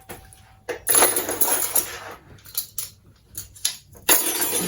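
Kitchen clatter of a spoon and dishes knocking and clinking as food is dished up, in several separate bursts, the longest about a second in and another near the end.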